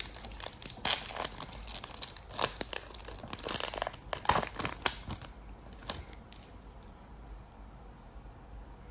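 Foil trading-card pack wrapper crinkling and tearing with the rustle of cards being handled, in quick crackly bursts that stop about six seconds in.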